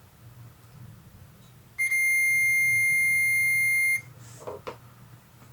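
Multimeter continuity tester beeping: one steady high beep lasting about two seconds, showing a closed circuit through the wire being probed. A few light knocks of the probes follow shortly after.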